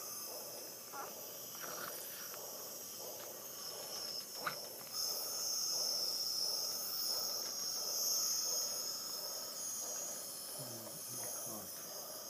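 Hospital jet nebulizer hissing steadily, with a high, even whine, as the medicated mist is driven through the corrugated mouthpiece tube. A light click sounds about four and a half seconds in.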